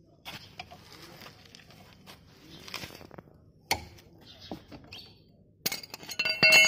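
Metal hand tools clicking and tapping on a car's front brake caliper as its bolt is worked loose, ending near the close with a ringing metallic clang of steel on steel.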